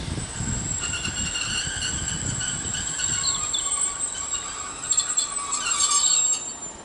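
Class 150 Sprinter diesel multiple unit drawing to a stop: a low rumble at first, then high-pitched squealing in several steady tones from its brakes and wheels, with a few sharp clicks. The squeal cuts off near the end as the train comes to rest.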